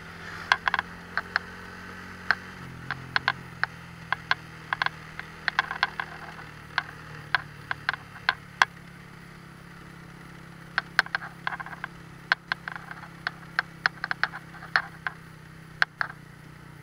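Motorcycle engine running steadily at a low pitch, overlaid by frequent irregular sharp clicks and rattles from riding over a rough lane, with a pause in the clicking of about two seconds in the middle.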